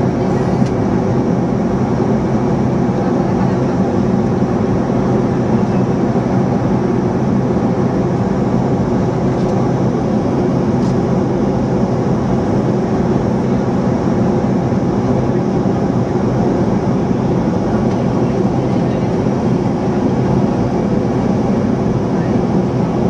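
Steady, loud drone of a vehicle in motion: a low engine hum under a constant rushing noise, unchanging throughout.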